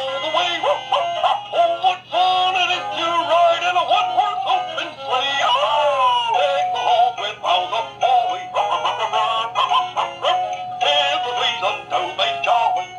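Dan Dee Collectors Choice animated plush Christmas dog singing a Christmas tune from its built-in sound chip: a high-pitched, synthetic-sounding voice over a jingly backing track.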